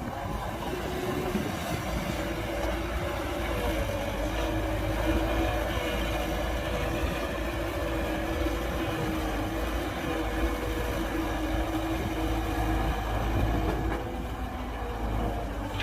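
Heavy diesel earthmoving machinery running steadily: a deep engine rumble with a few held humming tones and no sharp knocks.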